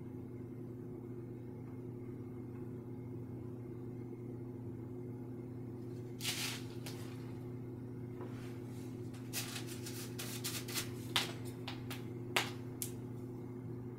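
Oil-paint brush working on a painting panel: a short swish about six seconds in, then a run of quick scratchy dabs and taps from about eight seconds to near the end, over a steady low hum.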